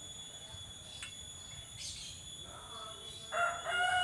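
Rooster crowing: one long, level-pitched crow starts about three seconds in and is still going at the end.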